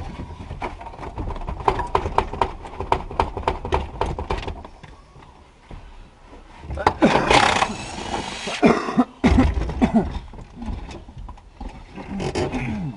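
Hands-on work on a Ford F-150's stripped dashboard: a run of quick clicks for the first few seconds, then a longer, louder rasping sound and a sharp thump about nine seconds in.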